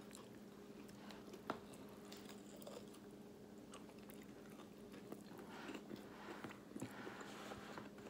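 Quiet, close-up chewing and biting of fried food, soft wet mouth sounds, denser near the end, over a steady low hum. A single light tap about a second and a half in.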